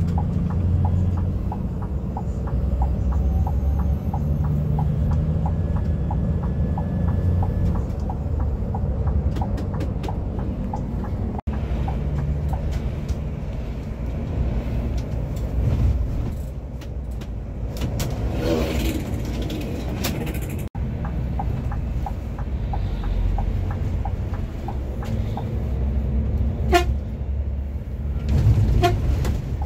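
A Scania K360iB coach running on the road, a steady low engine and road rumble, with a light regular ticking over the first third. A vehicle horn sounds for about two seconds around two-thirds of the way through, and two short horn toots come near the end.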